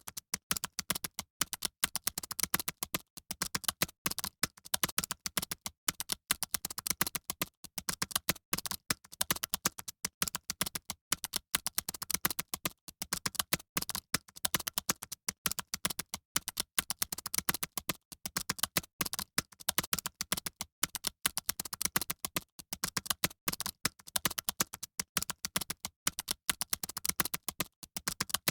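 Fast, continuous typing on computer keyboards: a dense, irregular run of key clicks with no pauses, like a room of people taking a typing test at once.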